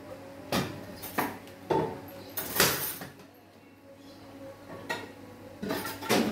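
Metal pots and kitchenware clattering and knocking as they are handled at a kitchen sink: a series of separate knocks and clinks, loudest about two and a half seconds in, with more near the end.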